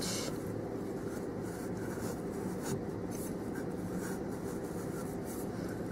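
Graphite marking lead of a dental surveyor rubbing along the teeth of a gypsum stone cast as it traces the height of contour: a soft, steady scraping like pencil on plaster.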